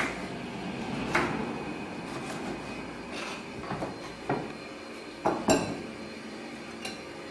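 Kitchen knife cutting tomatoes on a cutting board: a few separate knocks of the blade on the board, spaced a second or more apart, with no steady chopping rhythm.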